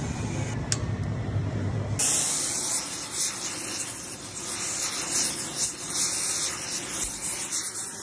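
Low hum that cuts off about two seconds in. Then the steady, loud hiss of an oxy-fuel heating torch flame playing on a cast cooling-fan hub, which is being heated so a puller can draw the fan off the motor shaft.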